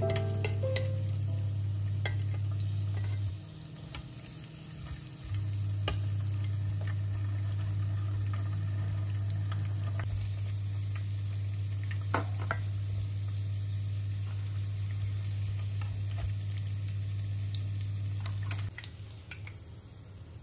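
Oil sizzling as breaded patties and noodle-wrapped balls shallow-fry in a pan, with a few sharp clicks of metal tongs against the pan as the pieces are turned. A steady low hum runs underneath, breaking off for a couple of seconds about three seconds in and stopping near the end.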